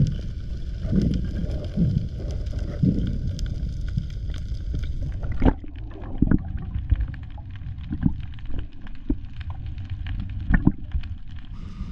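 Muffled underwater sound picked up by a diver's camera: a steady low rumble of moving water that swells about once a second, then changes about halfway through and is broken by scattered sharp clicks and knocks.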